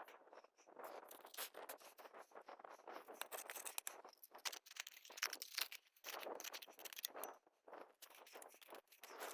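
Rocks and gravel scraping and clicking irregularly as a clogged spring is dug out by hand, with a denser patch of sharp clicks midway.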